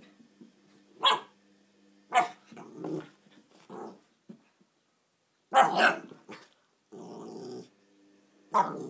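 Puppy yapping and growling while it plays: a string of short, sharp yaps a second or so apart, and a longer steady growl about seven seconds in.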